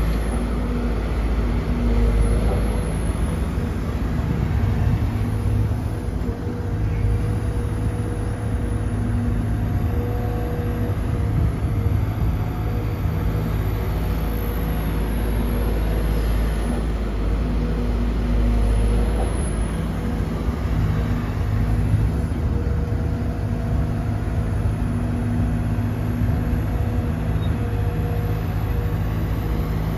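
Sumitomo SH210-6 hydraulic excavator's diesel engine running steadily under working load while loading a dump truck. A hydraulic whine comes and goes every few seconds as it works.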